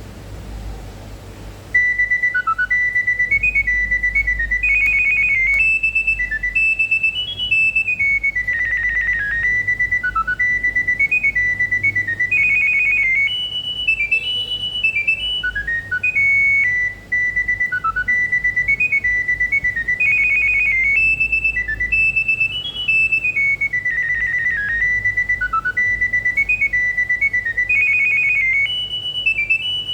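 Nokia 7210 ringtone playing through a Nokia 2760 phone's loudspeaker: a looping electronic melody of high beeping notes. It starts about two seconds in, and its phrase repeats roughly every eight seconds.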